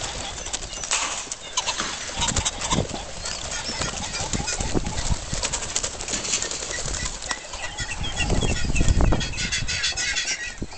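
Many pheasants flapping and scrambling as they are pushed out of delivery boxes, a dense rustle of wings with scattered short chirps. Wind buffets the microphone in a low rumble about eight seconds in.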